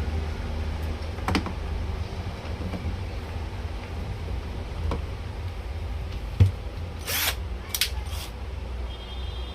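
Hand-tool and handling noises on a plastic toy scooter being worked on: a few sharp clicks and one hard knock, then short scraping rasps, over a steady low hum.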